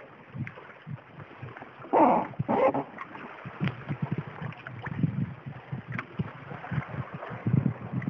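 Kayak paddle strokes with water splashing and lapping around the kayak's hull, including two louder splashes in quick succession about two seconds in.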